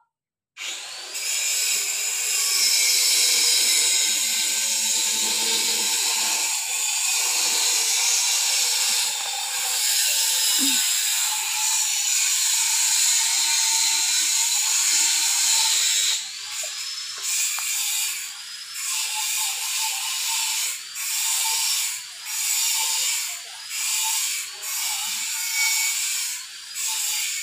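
Loud, high buzzing drone that starts suddenly and holds steady, then from about halfway breaks into pulsing swells roughly once a second.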